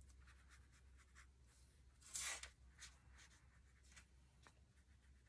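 Watercolour brush stroked across paper: faint soft brushing, with one clearer swish about two seconds in and a few fainter ones after it, over a low steady hum.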